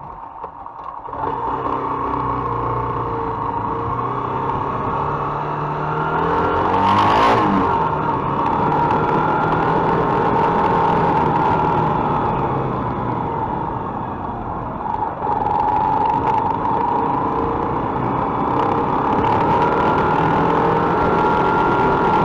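Mondial MH Drift motorcycle engine running while being ridden, its pitch rising and falling with the throttle and getting louder about a second in. About seven seconds in there is a brief louder rush.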